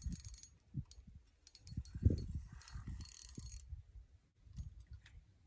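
Spinning reel being cranked in short bursts to bring in a hooked fish, its gears and bail giving a whirring, ticking winding noise. Low rumbling thumps from wind or handling on the microphone run underneath, loudest about two seconds in.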